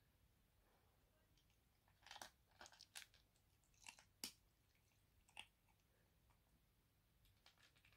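Kitten crunching dry kibble: faint, sharp crunches come in small clusters from about two seconds in, with a few more near the end.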